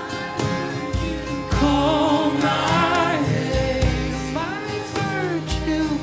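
Worship music with sustained chords and deep bass notes, and a singing voice gliding up and down in two phrases through the middle.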